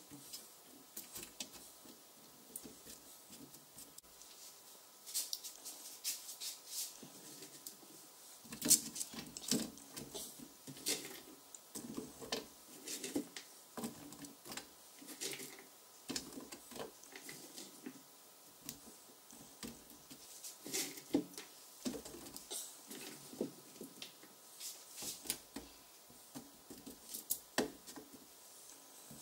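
Slices of raw potato and carrot being set down by hand on a parchment-lined metal baking tray: irregular soft taps and clicks, a few slightly heavier.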